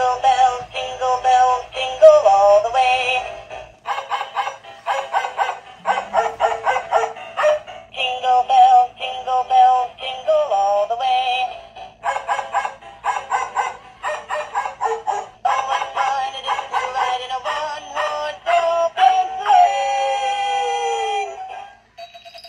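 Battery-operated plush snowman-and-dog Christmas toy, set off by pressing the button on the snowman's paw, playing a recorded Christmas song with a singing voice. Near the end the tune closes with a falling slide and the toy stops.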